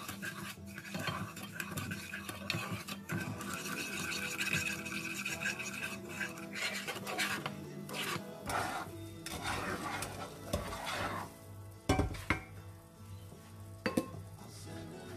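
Wooden spatula stirring and scraping melted butter and sugar in a saucepan, with sizzling. Two sharp knocks near the end.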